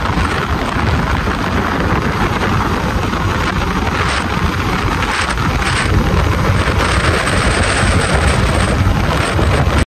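Riding a motor scooter at highway speed: a steady rush of wind buffeting the microphone, with engine and road noise underneath. It cuts off suddenly at the end.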